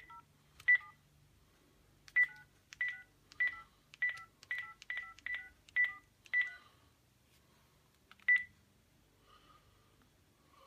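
Phone keypad tones as a number is dialled: about a dozen short beeps, most in a quick even run, the last after a pause of about two seconds.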